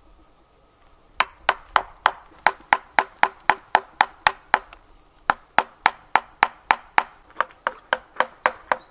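A chisel being hammered into a round of wood, cutting out circular recesses for tea-light candles: a steady run of sharp knocks, about four a second, starting about a second in.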